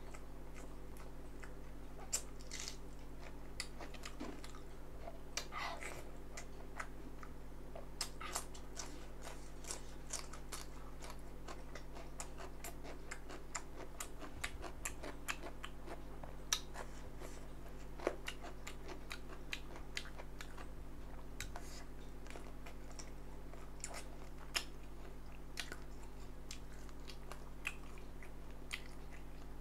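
Someone chewing and biting spicy chicken feet: irregular sharp clicks and mouth noises, several a second, over a steady low hum.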